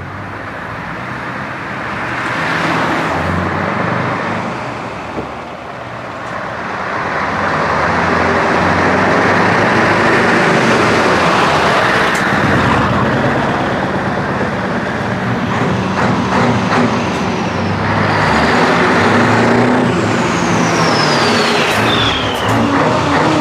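Classic heavy diesel trucks driving past close by, one after another, their engines running loud and swelling as each one passes. Near the end a high whistle falls steadily in pitch.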